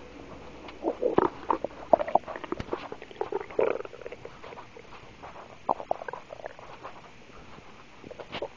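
A woman's stomach rumbling: a run of short, irregular gurgles and squeaks, busiest in the first half and thinning out toward the end.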